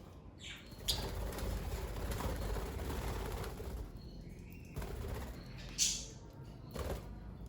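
Pet budgerigars moving about, with a stretch of rustling and wing-flapping noise, then a few short, sharp chirps near the end.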